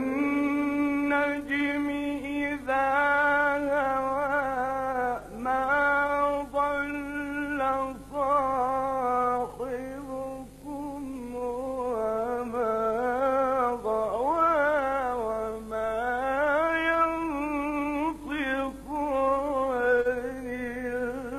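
A man's voice reciting the Quran in the melodic mujawwad style: long, ornamented phrases held on sustained notes that waver and turn, with a few short breaks for breath.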